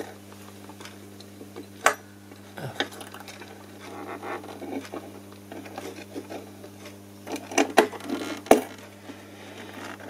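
Scattered small clicks and clinks of a potentiometer and hand tools knocking against a semi-acoustic guitar's body as the pot is worked into its mounting hole, over a steady low hum. There is one sharp click about two seconds in and a cluster of clicks near the end.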